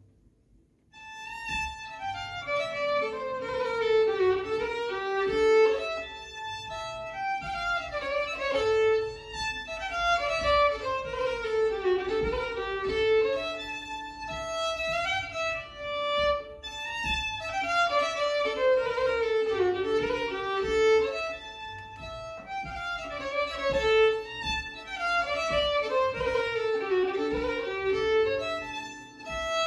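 Fiddle playing a Hälsingland polska, a Swedish folk dance tune. It starts about a second in, and its phrases run downward and come round again about every four seconds.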